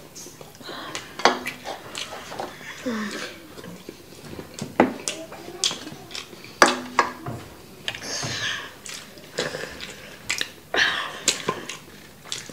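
Close-miked eating of sauced chicken wings: chewing, lip smacks and sharp wet mouth clicks come irregularly throughout. A few brief voiced murmurs are mixed in.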